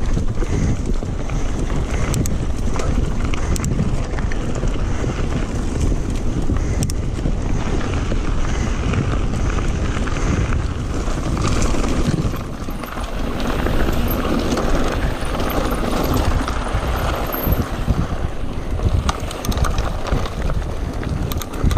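Mountain bike running fast down a rough dirt trail: a steady rush of wind on the bike-mounted camera's microphone over tyre noise, with frequent small rattles and knocks from the bike over the bumpy ground.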